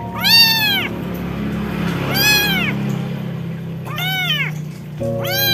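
A young kitten meowing again and again: four high, thin cries, each rising and then falling in pitch, about one to two seconds apart.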